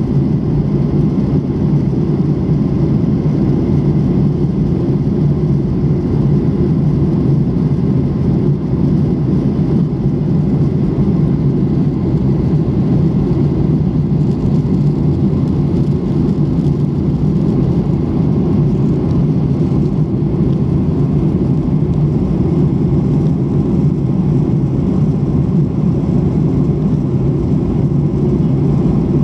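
Steady cabin noise of a Boeing 737-800 airliner at cruising altitude: an even, low rush of airflow and engine drone through the fuselage, unchanging throughout.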